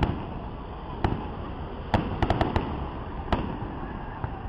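Aerial fireworks shells bursting: sharp bangs about a second in and near two seconds, a quick run of several cracks just after that, and another bang a little after three seconds.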